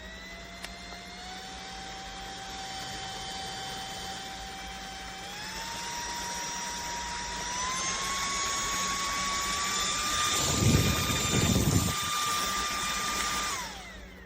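Handheld turbo fan's motor whining, stepping up in pitch several times as it is switched through its speeds, then winding down shortly before the end. Gusts of air buffet the microphone for a couple of seconds late on.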